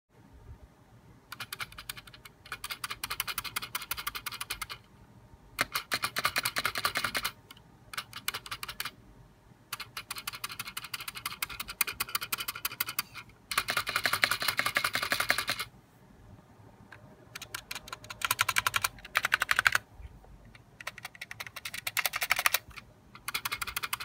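Spacebar of a KBD75 mechanical keyboard with Gateron Brown switches pressed rapidly over and over in bursts of one to a few seconds, clacking and rattling. The rattle comes from its unlubricated Cherry-clone stabilizers.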